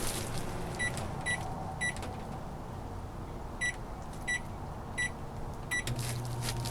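RCA microwave oven's keypad beeping: three short beeps, a pause, then four more as buttons are pressed. About six seconds in, the oven's low running hum sets in, louder than before.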